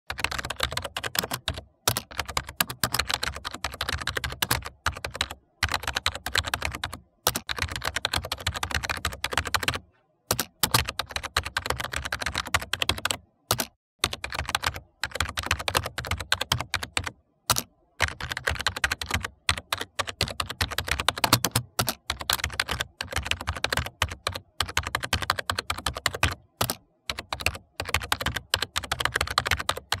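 Typing on a computer keyboard: fast, uneven key clicks in runs of a few seconds, broken by brief pauses.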